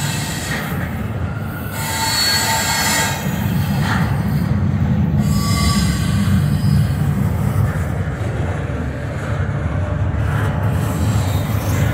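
Double-stack intermodal freight cars rolling past at a grade crossing: a steady low rumble from the wheels and trucks, with thin high wheel squeals that come and go.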